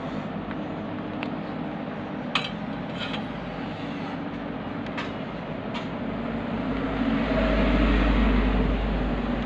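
Steady background rumble with a low hum, swelling louder about seven seconds in, with a few small sharp clicks and taps from handling a potentiometer and its wires.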